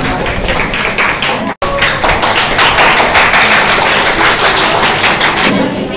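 A small crowd applauding, a dense patter of hand claps, with a brief break about a second and a half in, thinning out near the end.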